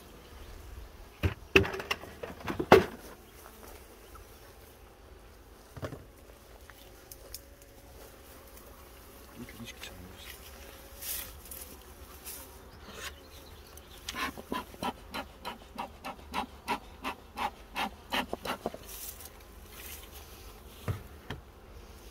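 Honey bees buzzing around an opened hive, a faint steady hum. A few sharp knocks come about two seconds in, and a quick run of clicks and taps, about four a second, fills the second half.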